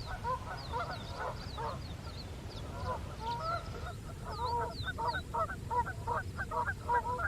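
A flock of Canada geese honking over and over, the honks coming thicker and more regular in the second half. Thin, high, falling chirps from another bird sound over them in the first half.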